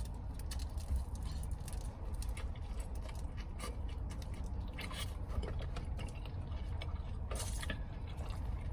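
Close-miked chewing and wet mouth clicks of someone eating, scattered light clicks over a steady low rumble.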